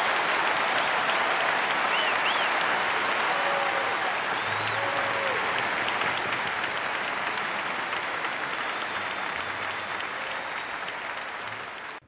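Crowd applause, with a few short whistles, slowly fading and cutting off abruptly near the end.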